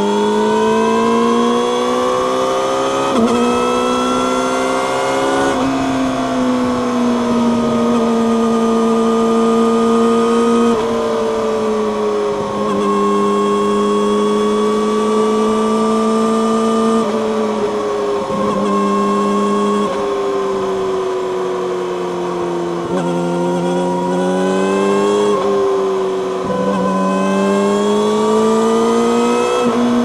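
Yamaha YZF-R6 (2019) inline-four engine through an Akrapovic megaphone slip-on exhaust, on the move: revving up with an upshift about three seconds in, holding a steady cruise, then shifting gear and rolling the throttle on and off several more times.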